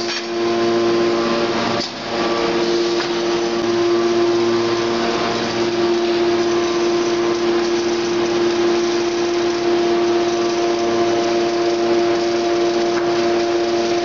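Aluminium extrusion line machinery running: a steady hum with a constant whine over a noisy rush, dipping briefly about two seconds in.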